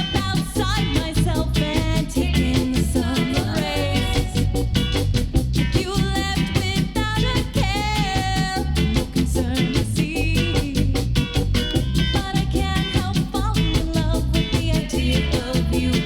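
Rocksteady reggae record playing from vinyl: a steady offbeat rhythm over strong bass, with a gliding, bending lead melody above it.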